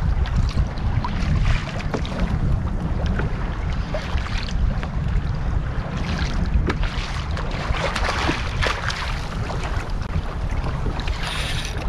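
Wind buffeting the microphone, with water washing against a kayak hull and scattered small knocks and clicks. A short, brighter hiss comes near the end.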